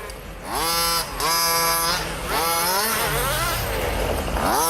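An engine being revved: the pitch climbs quickly and holds for about a second, twice, then drops back and wavers.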